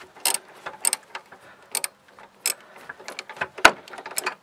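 A wrench working the 14 mm bolt of a seatbelt's lower anchor, loosening it: a string of sharp metallic clicks at irregular intervals, with one louder knock near the end.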